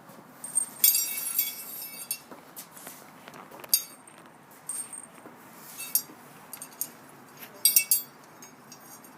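Metal tools and parts clinking and jangling against each other in several short bursts of high, ringing clinks, the longest about a second in and another cluster near the end.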